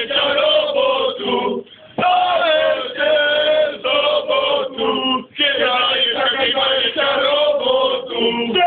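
A group of men singing loudly together, breaking off briefly a little under two seconds in and again after about five seconds.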